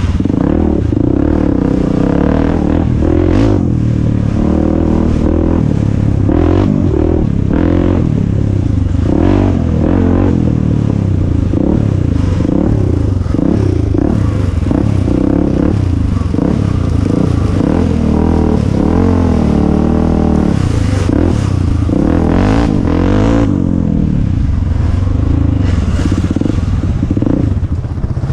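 Honda XR400's single-cylinder four-stroke engine on a dirt bike being ridden, its pitch rising and falling continually with the throttle, over frequent knocks and clatter from the bike on rough ground.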